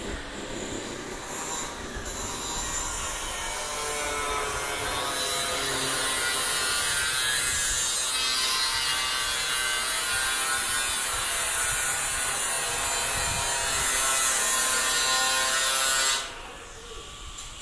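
A saw cutting through metal: a continuous grinding hiss with a ringing, screeching edge. It builds over the first few seconds, holds steady, and cuts off suddenly near the end.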